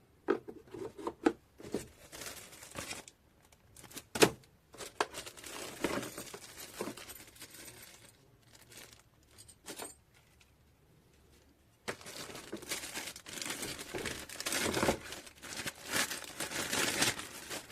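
Packaging being handled: crinkling, rustling and tearing of plastic and cardboard in two stretches with a quiet pause between, dotted with sharp clicks and knocks, the loudest about four seconds in.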